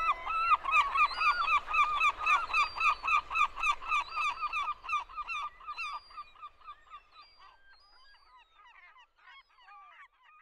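A flock of birds calling in a rapid run of short honks, several a second, dying away after about six seconds into fainter, scattered calls.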